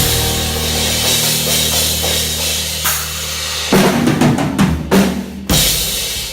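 Instrumental close of a pop-rock band song: a held chord under a cymbal wash, then three accented hits on the drum kit and band, the last one ringing away.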